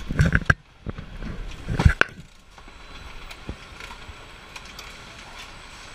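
Television assembly-line conveyor machinery running with a steady mechanical hum and faint ticks, after a couple of loud thumps in the first two seconds.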